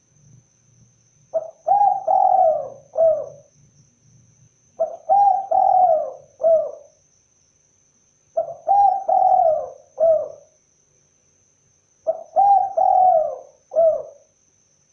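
Spotted dove (tekukur) cooing: four calls, one about every three and a half seconds, each a short coo, a longer drawn-out coo and a short closing coo.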